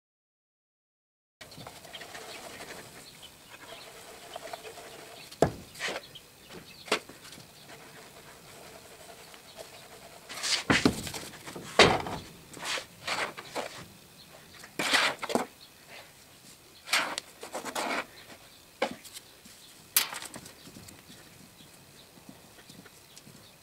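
Foundry molding sand being scooped, riddled through a screen and worked by hand into a flask: irregular short scrapes, rustles and knocks, most of them bunched in the second half.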